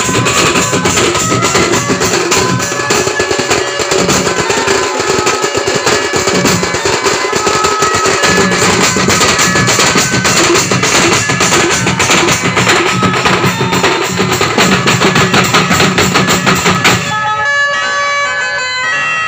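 Music with a steady drum beat and a melody over it. Near the end the drums and bass drop out, leaving a few held melody notes.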